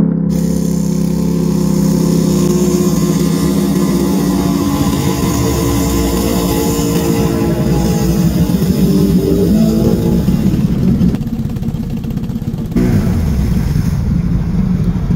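Can-Am ATV engine running hard through deep muddy water, with the engine note rising and falling as it revs. A little over halfway through the high end of the sound drops away, then comes back as the pitch falls.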